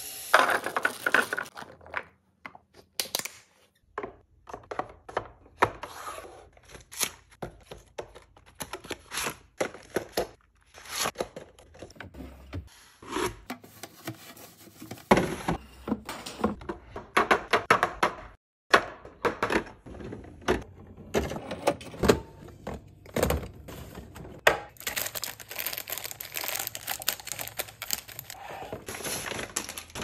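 Groceries being handled and stocked into a fridge: a run of quick clicks, knocks and taps as cartons and jugs are set into clear plastic fridge bins. Near the end a paper grocery bag rustles and crinkles.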